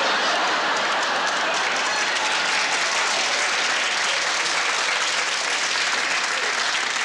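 Studio audience applauding, a dense, even clapping that holds steady.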